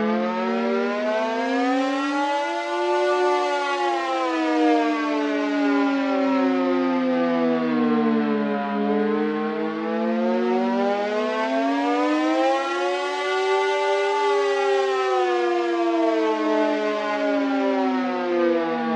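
Civil defense siren wailing in a slow rise and fall: its pitch climbs to a peak about three seconds in, sinks to a low point a little past the middle, climbs again to a second peak and falls away near the end.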